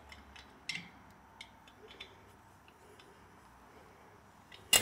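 Hand-turned die stock cutting a 5/8"-18 thread onto a Linkert carburetor's jet holder: scattered small metal clicks and ticks, with one sharp, much louder click near the end.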